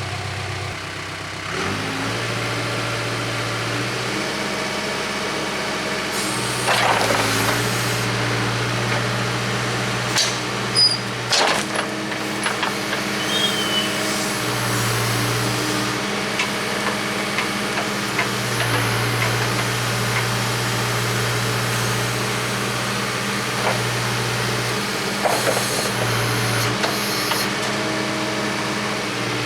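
Heavy diesel engine of a tractor or backhoe running, its speed stepping up and down several times as it works, with a few sharp metal knocks along the way.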